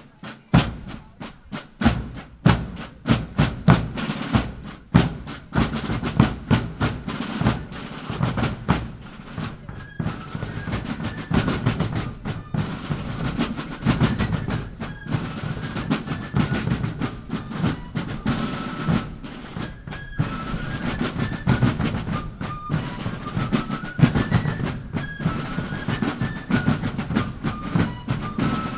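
Fife and drum music: snare drums beating a march rhythm with rolls, joined about ten seconds in by a high fife melody.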